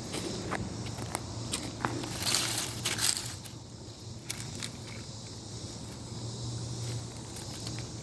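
Crunching and snapping of dry leaves and twigs underfoot, with a louder rustle about two seconds in, over a faint steady low hum.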